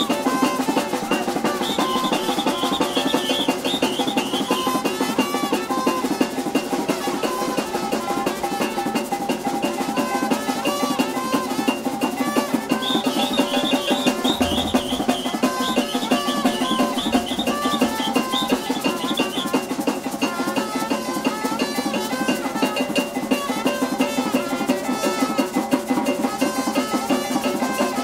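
Maracatu de baque solto (maracatu rural) band playing an instrumental passage: fast, dense drums and percussion with sustained horn notes. A high, shrill trill comes in twice, near the start and again about halfway through.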